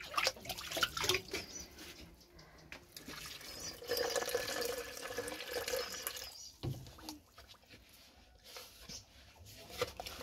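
Water pouring and splashing for about two seconds midway, ending abruptly, amid scattered knocks and clatter of handled utensils.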